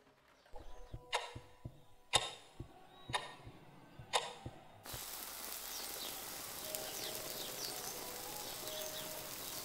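A clock ticking once a second: four loud, sharp ticks with softer knocks between. About five seconds in it cuts off suddenly to a steady outdoor hiss with birds chirping faintly.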